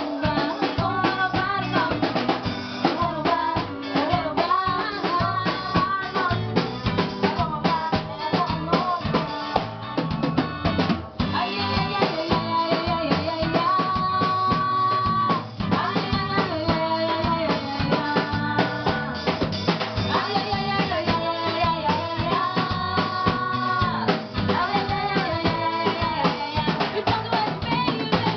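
A band playing fast, upbeat carnival music: a busy drum kit with snare, bass drum and rimshots drives the beat under a melody line of held and gliding notes.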